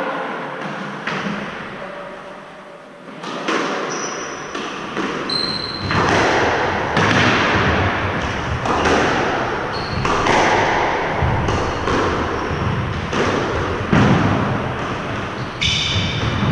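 Squash rally: the ball repeatedly smacking off racquets and the walls with a ringing echo, and brief high squeaks from shoes on the hardwood floor. The hits start a few seconds in.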